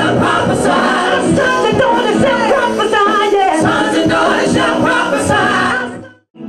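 Gospel worship singing: a lead singer on a microphone with the congregation singing along, over held accompaniment chords and a regular beat. It cuts off suddenly about six seconds in.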